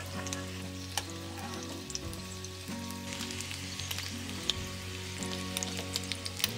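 Food frying in a pan of oil, a steady sizzle broken by frequent sharp crackles. Soft background music with held notes plays underneath.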